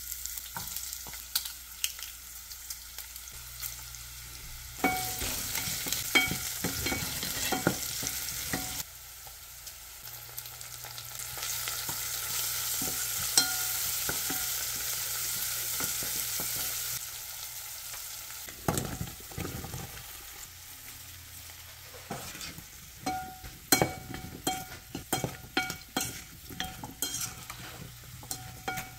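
Onions, green chillies and curry leaves sizzling in hot oil in a ceramic pot, a wooden spoon stirring and knocking against the pot; later cubed bottle gourd is stirred in with the spoon. The sizzle comes and goes in stretches, and the spoon knocks come thick near the end.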